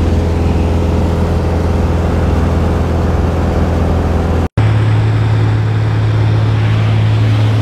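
Steady drone of a small propeller plane's engine heard inside the cabin in flight. About halfway through it drops out for an instant and comes back slightly higher in pitch.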